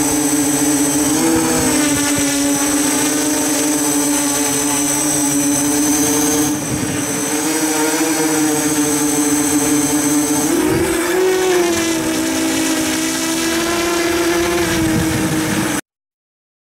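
Hexacopter's six brushless outrunner motors (MTO 2830/1300) and propellers running in flight, a steady whining drone. About eleven seconds in the pitch steps up and a lower tone wavers, and the sound cuts off abruptly near the end.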